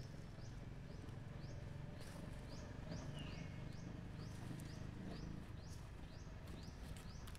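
A high, short rising chirp repeated about twice a second from a small calling animal, with a brief falling whistle about three seconds in, over a steady low hum.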